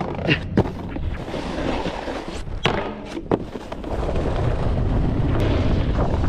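Snowboard riding over snow, the base and edges hissing and scraping, with a few sharp clacks in the first few seconds. From about four seconds in it becomes a louder, steady rush of wind on the microphone as speed builds.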